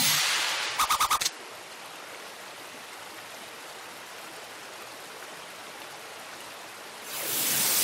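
A short burst of rapid pulsing sound effect cuts off about a second in. A steady even hiss of outdoor ambience follows, like wind or running water. Near the end a loud whooshing swell rises in.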